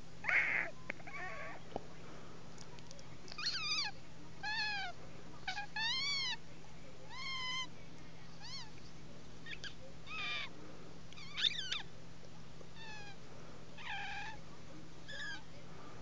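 A person's teeth squeaking in imitation of a cat's meow: about a dozen short, separate mews, each rising and then falling in pitch.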